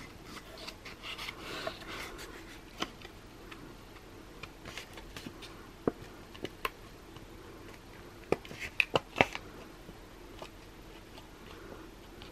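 A white cardstock card being folded in half and creased by hand: soft paper rustling and scraping with scattered sharp clicks and taps, a quick cluster of them about eight to nine seconds in.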